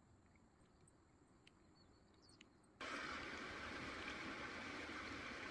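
Faint outdoor quiet with a few soft clicks. About three seconds in it switches abruptly to the steady hiss of firewood burning in a small metal camp stove.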